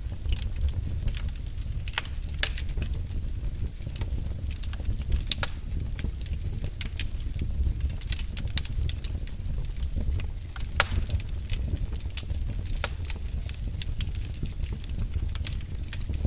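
Wood fire burning in a fireplace, crackling and popping irregularly over a steady low rumble of the flames.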